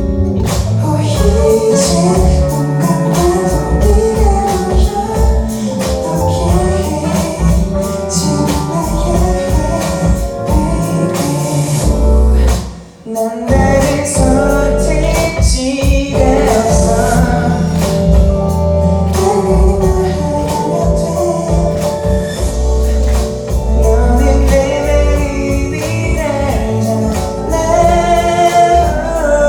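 Live band music with singing. The band drops out for a brief break about halfway through, then comes back in.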